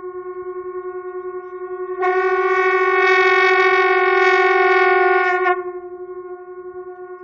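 Two conch shells blown at once by one player, sounding a continuous drone on one steady pitch with a rapid pulsing waver. From about two seconds in it swells louder and brighter for some three seconds, then drops back to its softer level.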